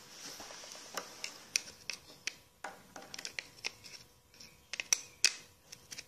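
Renault Clio door lock mechanism being worked with a screwdriver: an irregular string of sharp metallic clicks and taps, the loudest a little before the end, as the latch release is tripped.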